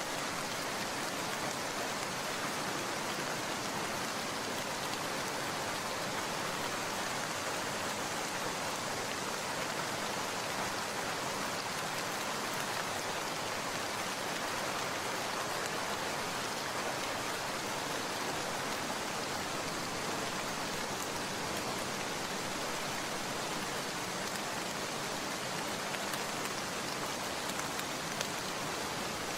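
Steady rain falling, an even, continuous patter with no breaks or build-ups.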